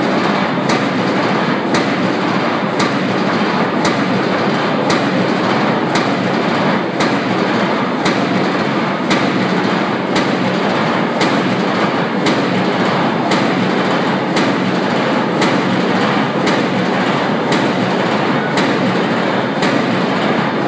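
800-ton blanking press running a slap die at 56 strokes a minute: a sharp strike about once a second over a steady, loud din of machinery.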